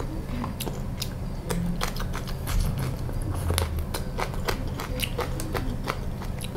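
A person biting and chewing food, with irregular crisp, crunching clicks.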